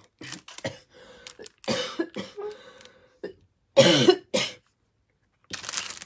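A person coughing twice in quick succession about four seconds in. Before it come shorter rustles of clear cellophane and paper being moved by hand.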